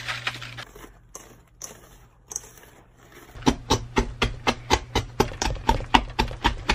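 Wire whisk stirring dry bath-bomb powder in a stainless steel mixing bowl, its wires striking the metal in a regular clicking about four or five times a second from about halfway through. A brief hiss of Epsom salt pouring into the bowl at the start.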